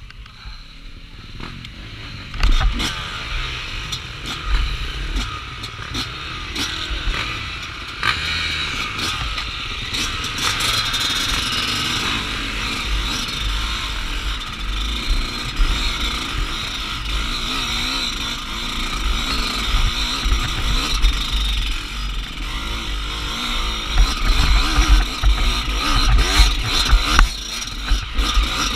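Off-road dirt bike engine revving and pulling hard along a rough trail, heard from a camera mounted on the bike. It is mixed with rattles and knocks from the bike going over bumps. The engine gets much louder about two and a half seconds in.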